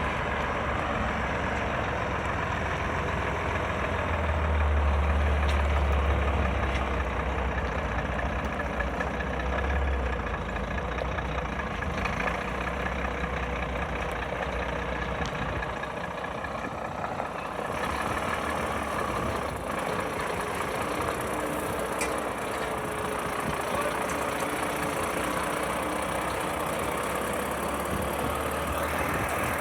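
Heavy lorry engine running as it hauls a fairground ride trailer onto the ground, a deep engine drone that grows louder for several seconds about four seconds in, then settles to a steady rumble.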